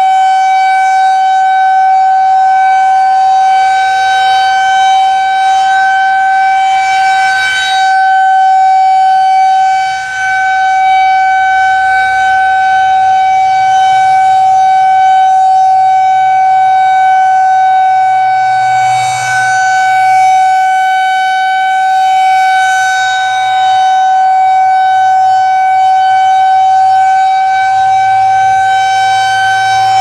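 Federal Signal 2001-130 electronic siren sounding a steady, unwavering tone during a siren test. Its horn rotates, so the sound swells each time the horn sweeps past, about every eleven seconds.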